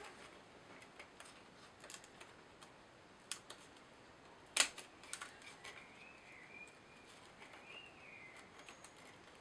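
Faint taps and clicks of small laser-cut plywood kit parts being handled and set down on a table, with two sharper clicks about three and four and a half seconds in.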